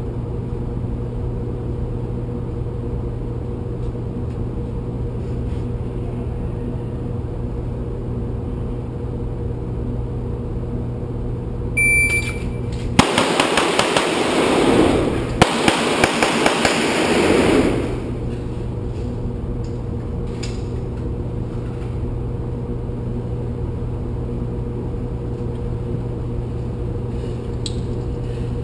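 A shot-timer beep, then about a second later a fast string of pistol shots from a Smith & Wesson M&P Pro lasting about five seconds, each crack echoing off the concrete walls of the indoor range. A steady background hum runs underneath.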